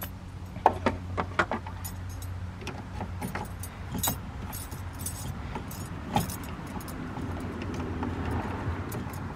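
Metal hand tools clinking and knocking against metal as nuts on the engine-bay coolant reservoir are worked loose: irregular sharp clicks, a cluster of them in the first second and a half and more at about four and six seconds, over a steady low hum.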